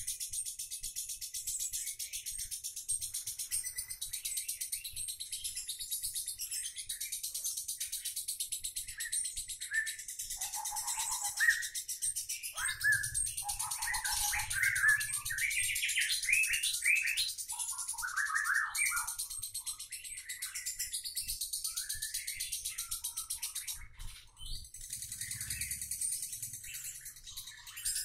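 Lovebird singing a long, continuous ngekek: a rapid, high-pitched chattering trill that runs without a break. Louder, lower squeaky notes are mixed in through the middle.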